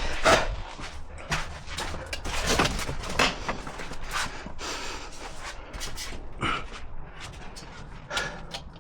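Irregular knocks, clatters and scraping sounds of hand work, with the sharpest knock near the start.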